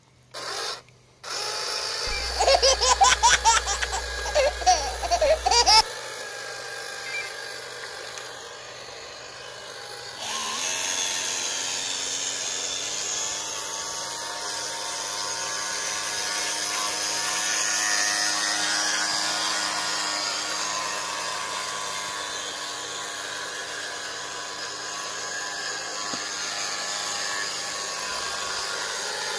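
Small electric motors of radio-controlled speedboats whining like a drill. The pitch wavers in quick bursts of throttle between about two and six seconds in, then the whine runs steadily from about ten seconds in.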